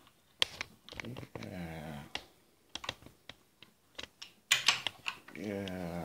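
Small plastic toy construction vehicles clicking and clattering as they are picked up, set down and pushed about on a glass tabletop, with the loudest clatter a little past the middle. Twice, a person's voice makes a drawn-out sound about a second long, rising then falling in pitch.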